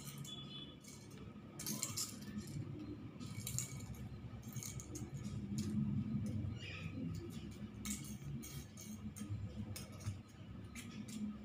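Ballpoint pen scratching on paper in short, irregular strokes as lines are drawn, over a low background rumble.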